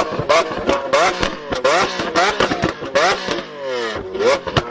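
Lamborghini Aventador LP700-4's V12 engine revved in short repeated throttle blips, the pitch rising quickly on each one about twice a second, with sharp pops between them. Near the end the revs fall away in one longer drop.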